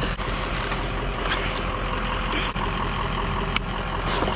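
Vehicle engine running steadily at idle, with a few short clicks.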